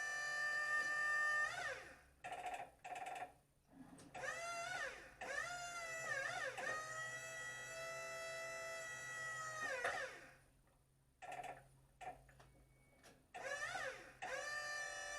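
Wood-Mizer LT35 band sawmill running with a steady high whine that twice sags and falls in pitch, drops out briefly, then climbs back up to speed.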